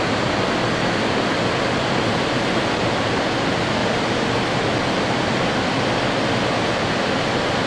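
Steady rushing of a white-water mountain stream, an even noise with no breaks.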